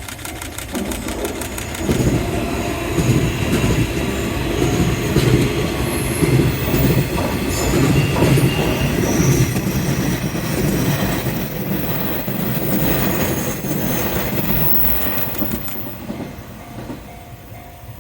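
Nishitetsu electric trains passing over a level crossing: a heavy rumble of wheels on rail with clickety-clack and some high wheel squeal. A level-crossing bell is ringing rapidly at the start.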